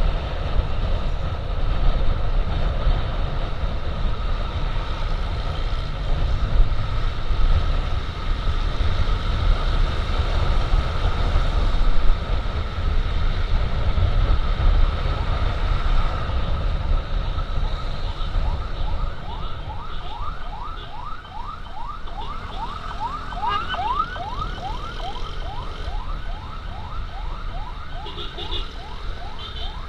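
Emergency siren sounding over heavy wind rush and road noise from a moving motorcycle. In the latter part the siren goes into a fast yelp of rising sweeps, about three a second.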